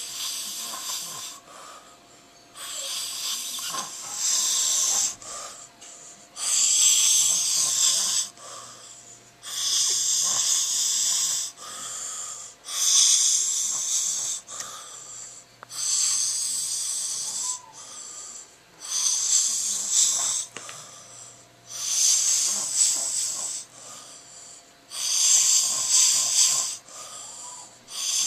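A man snoring: about ten loud, hissy breaths, one every three seconds or so, with quieter gaps between.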